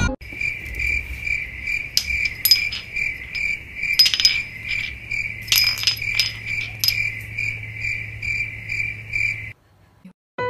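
Insect-like chirping, a high tone pulsing evenly about two or three times a second, with several sharp clinks laid over it. It stops shortly before the end.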